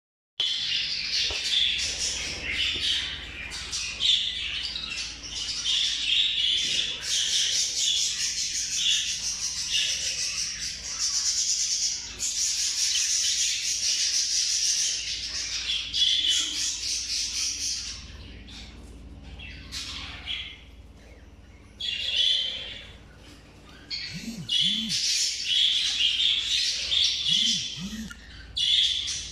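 Lacewing budgerigar warbling: a rapid, continuous high-pitched chatter of chirps and squeaks. It thins out for a few seconds about two-thirds of the way through, then picks up again.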